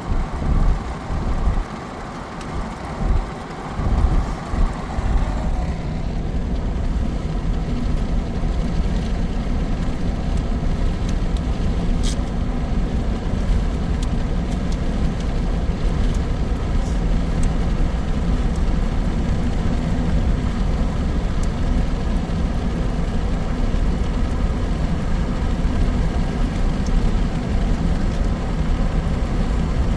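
Road vehicle running at steady speed, heard from inside the cabin as a continuous low engine and tyre drone. For the first five seconds or so there is uneven low buffeting, then it settles into an even drone.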